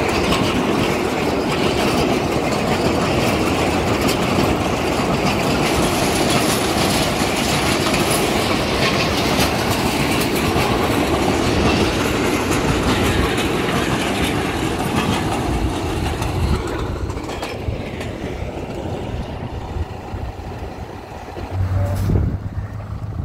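Narrow-gauge sugar cane train running past, its wagons clattering steadily over the rails, then fading away over the last several seconds. Near the end comes a brief low buffet.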